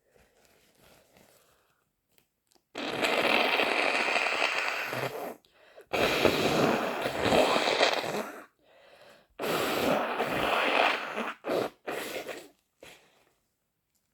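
A person with a cold blowing their nose hard: three long blows of about two and a half seconds each, then a few shorter ones near the end.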